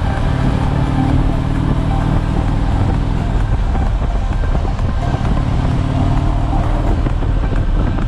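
Harley-Davidson Tri Glide Ultra trike's V-twin engine running steadily at cruising speed, with wind and road noise, heard from the rider's seat.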